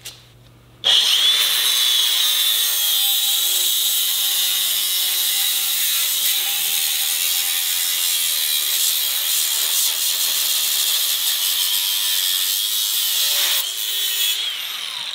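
DeWalt angle grinder cutting through thin 1/16-inch steel channel: the motor starts about a second in and runs at a steady high whine while the disc grinds through the metal, then the cut ends and the grinder winds down near the end.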